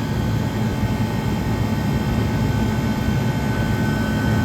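1978 Comfort Air Quiet Master window air conditioner running steadily, its fan rushing air over a low compressor hum with a faint high whine. The compressor is still building head pressure.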